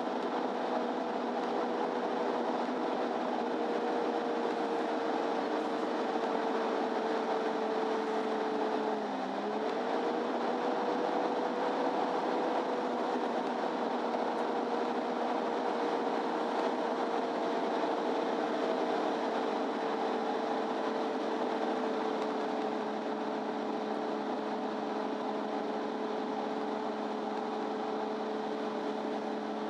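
MAN Lion's City Ü intercity bus heard from inside the passenger cabin while driving: its engine and drivetrain run steadily over the road noise, with a steady whine. The whine dips sharply in pitch for a moment about nine seconds in, then settles back.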